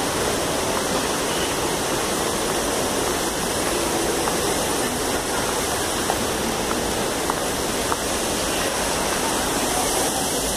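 Fast stream rushing over rocks: a steady, even rush of water.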